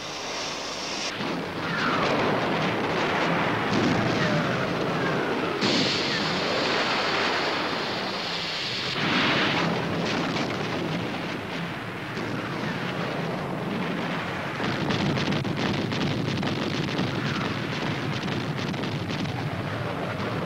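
Battle sound effects of shelling and bombing: a continuous rumble of explosions, with several falling whistles like incoming shells or bombs.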